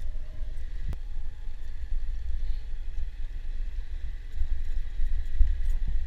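Strong wind buffeting the microphone on a moving motorcycle: an uneven, gusting low rumble. There is one sharp click about a second in.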